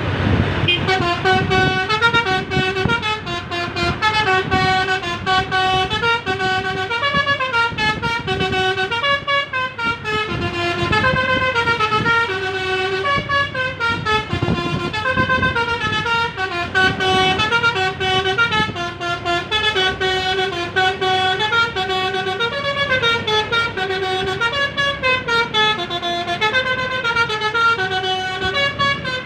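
Bus's Basuri telolet multi-tone horn playing a tune, its notes stepping up and down in quick succession over a low rumble. The tune starts about half a second in.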